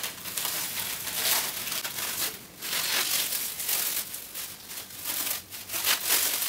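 Plastic cling film crinkling and crackling in uneven bursts as it is pulled and unwound from around a wrapped belly.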